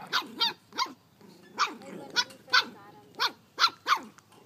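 Dogs play-fighting, barking in about nine short, sharp yaps that come in quick clusters, with low growling between them.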